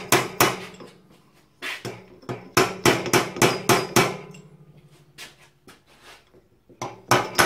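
Repeated sharp metal-on-metal hammer blows in quick bursts, each with a short ring, as the hammer slides down the fork stanchion onto the old bush and washer. The blows drive the new top bush down into the aluminium fork leg of a Yamaha TDR 250 until it seats; the sound of the blows changes once the bush is all the way in.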